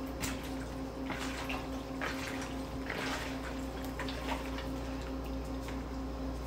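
Hands squeezing and tossing sliced raw chicken breast with seasoning in a plastic bowl: soft, irregular wet squishes about once a second, over a steady low hum.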